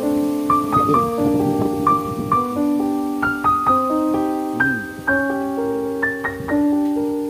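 Background piano music: a slow melody of single notes that ring and fade one after another.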